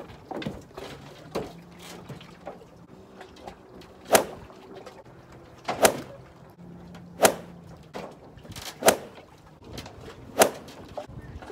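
Sharp hollow knocks on a wooden dock: five loud ones about a second and a half apart, with smaller taps in between.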